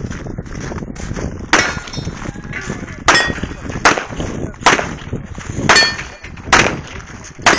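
A Gen 4 Glock 17 9mm pistol firing a string of seven shots during a USPSA Production stage. The shots start about a second and a half in and come roughly one a second or faster. Thin metallic ringing tones hang after several of them.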